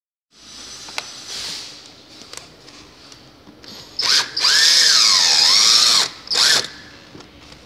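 Cordless drill-driver removing a bolt: a short burst, then a run of about a second and a half with the motor pitch sagging and recovering under load, then another short burst. A few light knocks of handling come before it.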